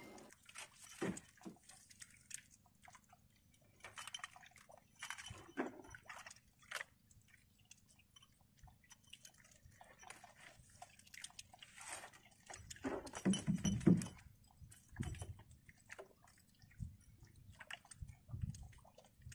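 Close handling of a net-covered crab trap: scattered rustles, crackles and small knocks as hands work the netting and frame, with a louder burst about two-thirds of the way through.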